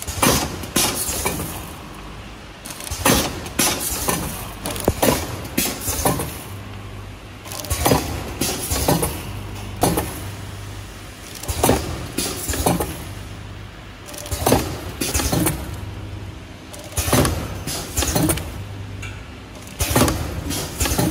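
Liquid and grain pouch packing machine running through its cycle: sharp mechanical clacks, mostly in pairs about two seconds apart, as the sealing jaws and filler work, over a low motor hum that cuts in and out.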